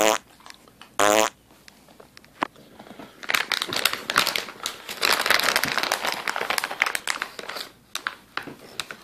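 Two short, loud pitched squeaks about a second apart near the start, then several seconds of dense crinkling and crackling from a plastic snack bag of cashews being handled, fading out before the end.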